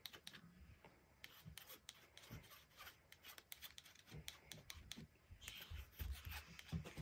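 Faint scraping and rubbing of a plastic painting knife dragging acrylic paint across canvas-like paper in short strokes, with a few soft low thumps in the second half.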